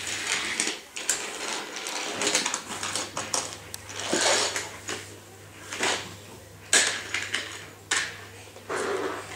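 Small toy engines being pushed, lifted and set down by hand on plastic toy track: irregular clicks, light clatter and scraping, over a low steady hum.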